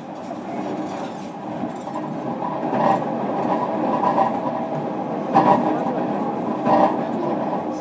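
Inside a JR Kyushu 305 series EMU motor car on the move: a steady running noise with a level hum from the Toshiba permanent-magnet synchronous motors and inverter. Now and then the wheels clatter over the track.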